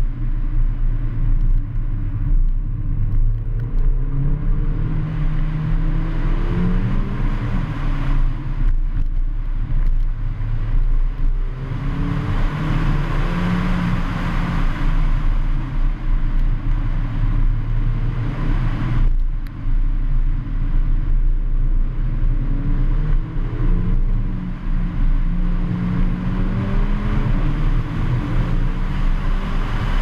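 Mercedes-AMG A45's turbocharged four-cylinder engine pulling hard, its pitch climbing and dropping back several times, with brief dips about 9 and 19 seconds in. It is half buried under loud wind noise, which swells in the middle, and the rumble of a rough road surface.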